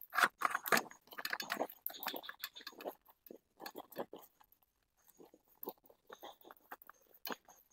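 Wooden spatula stirring rice in a metal camping pot: a quick run of scrapes and taps against the pot, busiest in the first three seconds, then sparser.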